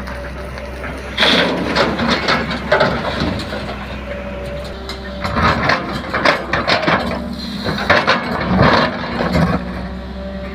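Diesel engine of a JCB 3DX backhoe loader running steadily, with loud, irregular scraping and clattering from the machine working. The bursts come about a second in and again from about five to nine and a half seconds.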